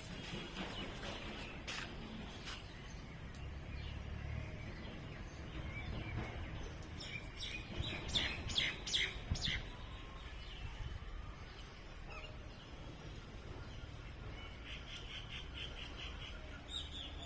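Birds chirping in short runs of quick, sharp calls, the loudest run about eight to nine and a half seconds in and a softer one near the end, over faint low background noise.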